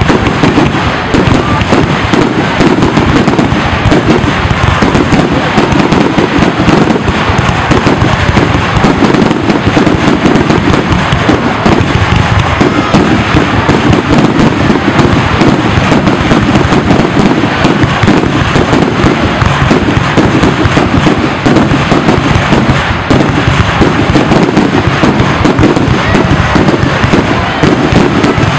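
Aerial fireworks going off in a dense, nonstop barrage of bangs and crackles, very loud.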